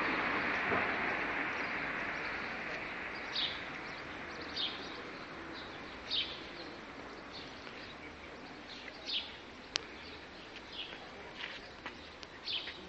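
A small bird chirping, short high calls that each drop a little in pitch and repeat irregularly every second or two, over a steady outdoor noise that fades away in the first few seconds.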